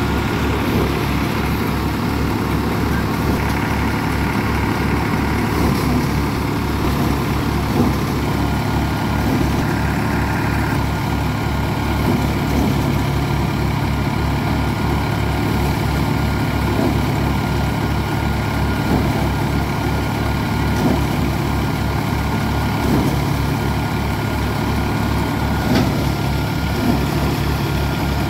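Tractor diesel engine running steadily while driving a Dashmesh paddy thresher, whose drum turns as paddy is fed in. The sound is a steady drone with a rapid, even low throb and no change in speed.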